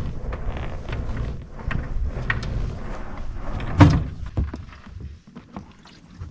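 A crab trap line being hauled in hand over hand over the side of an inflatable dinghy: a low rumble with small knocks and clicks of rope and hands on the boat, and one loud thump a little before four seconds in. It goes much quieter about five seconds in as the trap's bridle reaches the surface.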